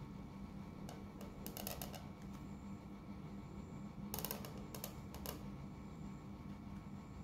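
Broad-nib calligraphy pen scratching across paper while lettering, heard as two short clusters of rapid dry ticks, about a second in and again around four seconds in, over a faint steady hum.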